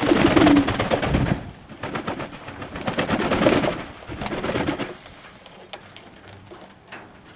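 Fantail doves cooing in two bouts: one in the first second and a half and another from about two and a half to nearly five seconds in, then quieter.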